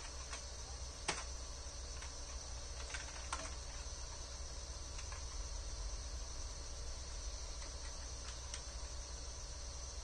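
A few scattered computer keyboard key presses over the steady hum and faint high whine of a running desktop computer.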